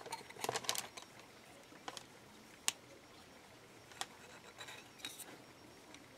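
Faint scattered clicks and light taps as a clay blade and a clay-covered brass bracelet form are handled while the clay edges are trimmed. A quick flurry of clicks about half a second in is followed by single ticks every second or so.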